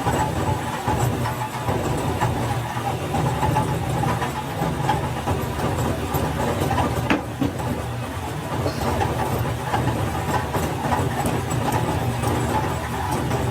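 Factory machinery running with a steady low hum and a faint whine, with one sharp click about seven seconds in.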